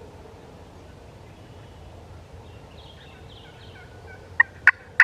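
Wild turkey calling: a run of sharp, loud yelping notes starting near the end, about three in under a second, over faint songbird chirps.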